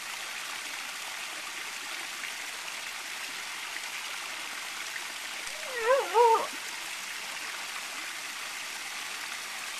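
Fountain water splashing steadily into a shallow pool. About six seconds in there is a brief two-part call whose pitch wavers up and down.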